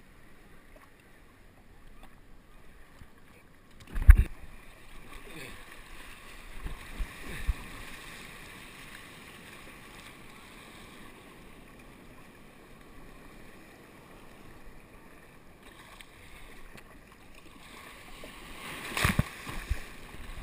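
Water washing and splashing around a plastic sit-on-top kayak as it is paddled through small breaking waves at sea. There is a sharp knock about four seconds in and a louder splashing burst near the end.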